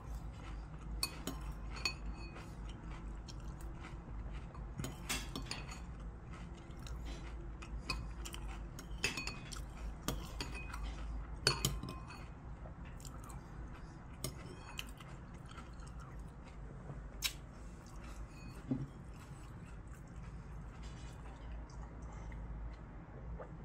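A metal spoon clinking now and then against a ceramic bowl as cereal in milk is scooped, with chewing between the clinks. The clinks thin out in the last few seconds.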